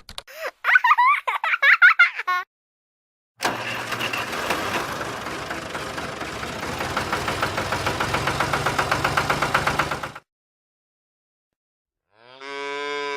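Farm animal calls played one after another: first a run of short, high chirping calls, then about seven seconds of a rough, pulsing call, and after a pause a single drawn-out call that drops in pitch at the end.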